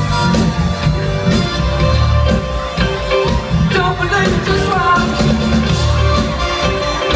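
Live cover band playing a funk-pop song: a steady drum beat with bass and electric guitar, and a singer's voice around the middle.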